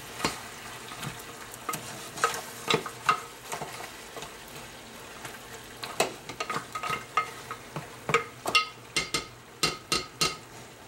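Goat meat sautéing in a stainless steel stockpot, sizzling faintly while a spatula stirs it, knocking and scraping against the metal pot with a light ring. The knocks are sparse at first and come thick and fast from about six seconds in.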